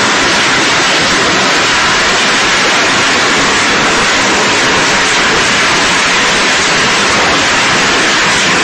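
Puffed corn snack production line running: extruder, conveyor and rotating flavouring drum making a loud, steady rushing noise with no distinct tones.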